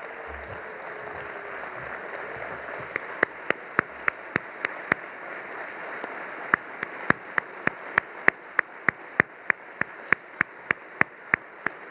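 Audience applause as a steady patter. Over it, from about three seconds in, comes a run of sharp, evenly spaced clicks close by, about three to four a second, with a short break in the middle.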